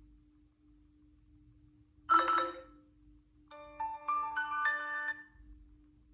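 Tecno Camon 20 smartphone's speaker playing an electronic sound: a single bright chime about two seconds in, then a short jingle of notes stepping upward in pitch.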